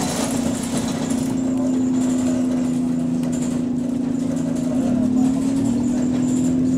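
Bus engine running under way, heard from on board: a steady drone whose pitch dips briefly and recovers about five seconds in.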